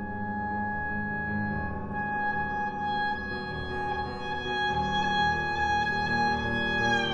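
Clarinet holding one long high note over sustained low piano chords, bending down to a slightly lower note near the end.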